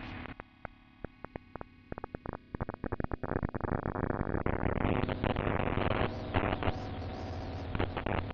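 Improvised electronic noise music from a distorted software synthesizer: stuttering, glitchy clicks over a low drone, sparse at first, then thickening about three seconds in into a dense distorted wash.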